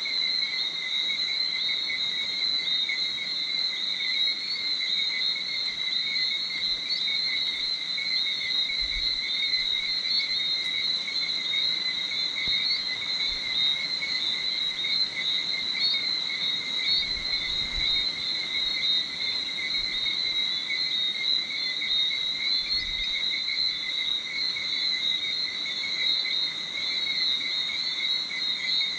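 Dense night chorus of calling insects: a steady, high-pitched, unbroken shrill.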